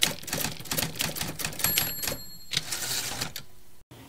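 Typewriter sound effect: rapid clacking of keys, broken about two seconds in by a high bell-like ding. The clacking then goes on briefly before cutting off near the end.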